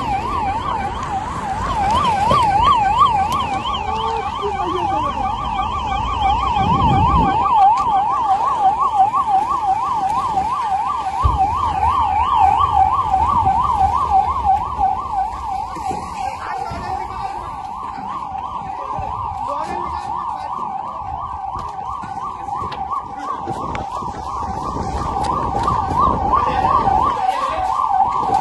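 Emergency vehicle's electronic siren sounding continuously in a rapid warble, its pitch rising and falling several times a second.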